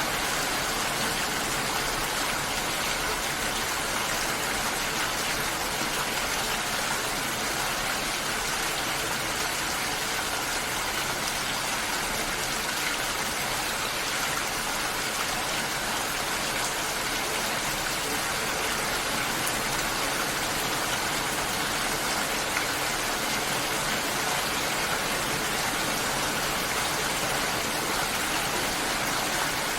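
Rain falling steadily: an even, unbroken hiss of raindrops with no single drops standing out.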